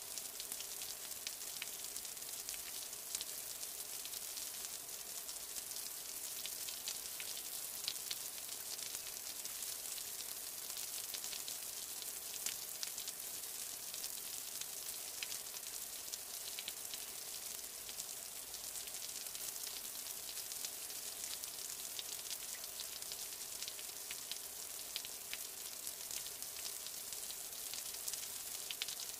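Steady rain: an even hiss of falling water with many small individual drop ticks scattered through it.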